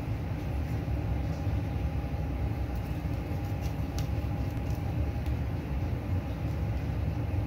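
Steady low mechanical rumble with a faint hum, the loudest sound throughout, over a few faint clicks from a kitchen knife cutting a sea bream on a wooden board, the clearest about four seconds in.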